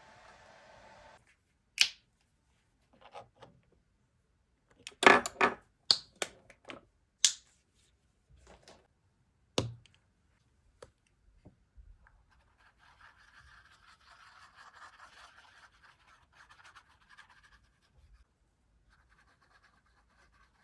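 A series of sharp clicks and knocks from handling painting materials, then, about halfway through, the soft, steady scratching of a paintbrush spreading paint across a canvas.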